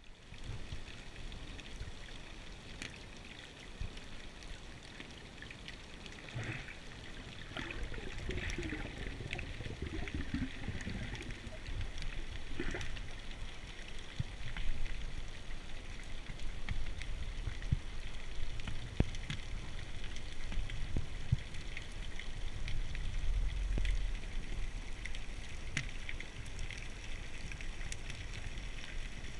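Underwater ambience picked up by a submerged camera: a steady low wash of water with scattered sharp clicks and crackles, and a faint wavering tone for a few seconds in the middle.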